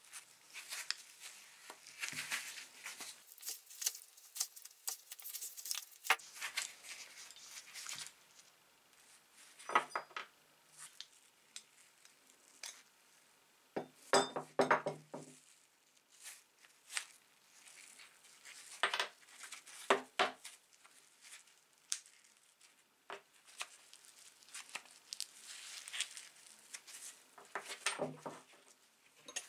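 Small rusty steel parts of an old Graco hand pump being scraped and handled: a flat tool scrapes inside a small metal cup for the first several seconds, then metal washers, cups and a nut clink and knock as they are taken apart and set down on a wooden bench, in a few separate bursts.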